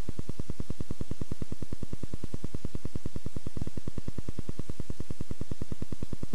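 Film projector running, its mechanism clattering in a fast, perfectly even rhythm of about seventeen clicks a second: the sound of a silent home movie being projected.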